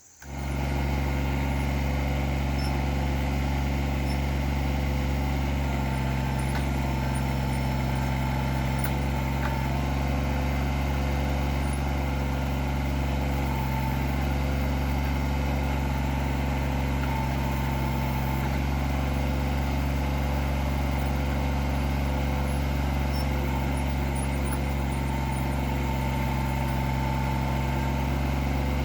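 Kubota BX25D tractor's three-cylinder diesel engine catching right at the start and then running steadily.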